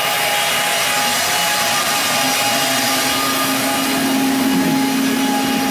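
Steady, unbroken machine noise from a running motor, a hiss with a constant hum on it. A lower steady tone joins about halfway through.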